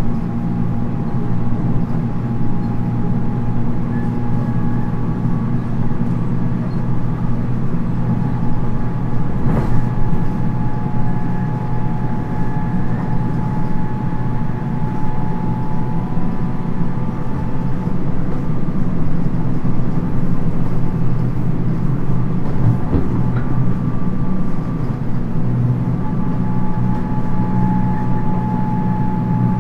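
719 series electric multiple unit running between stations, heard from inside the passenger car: a steady rumble of wheels on rail with several steady whining tones above it. A single sharp knock comes about ten seconds in, with a smaller one later.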